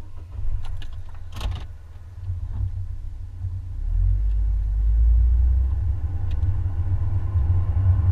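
Car engine and road rumble heard from inside the cabin as the car pulls away and gathers speed, growing louder over the first few seconds, with a sharp click about a second and a half in.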